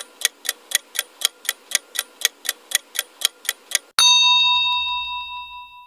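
Quiz countdown timer sound effect: a clock ticking steadily about four times a second, then about four seconds in a bell ding that rings on and fades away, signalling that time is up.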